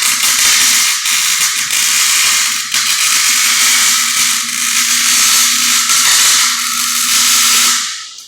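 Electric arc welding: the arc crackling and hissing steadily as a bead is laid, with a steady low hum under it. It cuts off shortly before the end.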